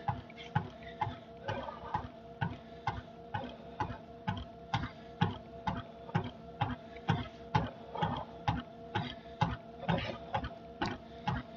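Steady footfalls on a motorized cardio machine, about two and a half knocks a second, over the machine's steady motor hum.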